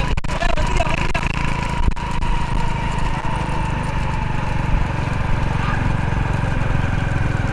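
Motor vehicle engine running steadily, with a faint whine that sinks slowly in pitch.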